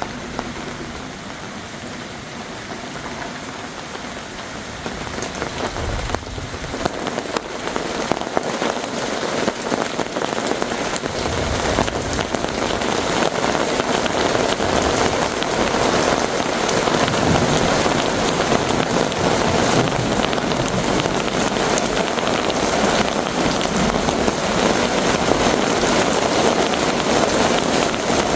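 Heavy thunderstorm rain pouring, growing heavier through the first half and then holding steady as a dense downpour.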